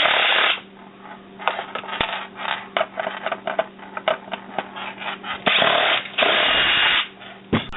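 A rice cooker's lid being taken apart, with scattered clicks and knocks of parts being handled and three short bursts of harsh, rasping noise, the longest near the end.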